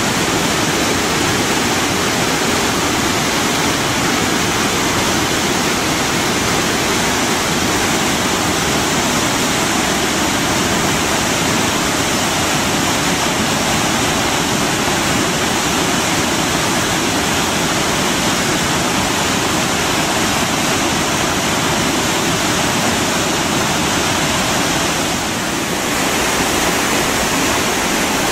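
Steady, loud rush of a large waterfall and whitewater pounding over rocks, with a brief slight dip in level near the end.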